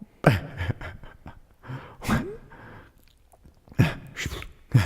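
A man's short wordless vocal sounds, grunts and hums, coming four or five times with pauses between, one rising in pitch about two seconds in.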